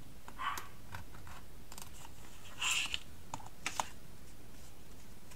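Craft knife cutting card along a ruler on a cutting mat: a few short scratchy strokes with light clicks and taps, most of them between about two and four seconds in.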